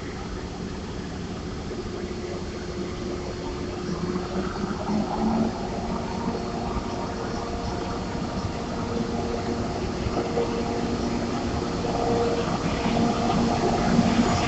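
EF64 electric locomotive pulling a train away from a standstill, a steady mechanical hum of several held tones growing gradually louder as it draws past.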